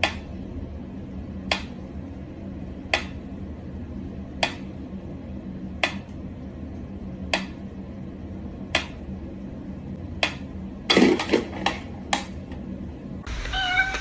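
Sharp single taps or knocks repeating about every second and a half over a low steady hum, then a quick flurry of louder knocks near the end.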